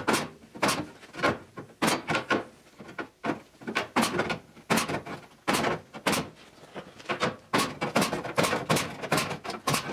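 Pneumatic hand punch snapping holes through a steel sill flange, about twenty sharp strokes at roughly two a second, each with a short hiss of air: holes being punched for plug welds.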